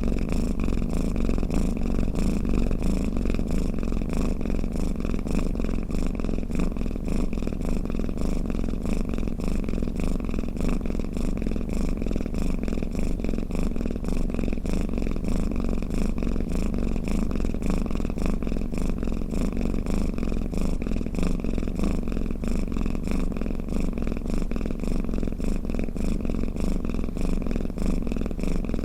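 Domestic cat purring steadily: a continuous low rumble of rapid pulses with no break.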